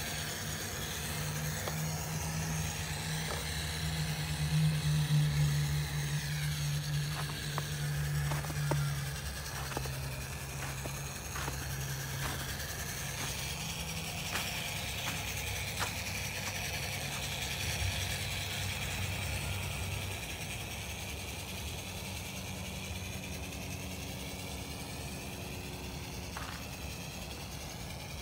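Small electric hobby-grade RC truck driving over snowy grass: its motor and gears whine, the pitch rising and falling with the throttle, with scattered sharp clicks and knocks from the chassis over bumps. The sound drops off in the last third as the truck runs farther away.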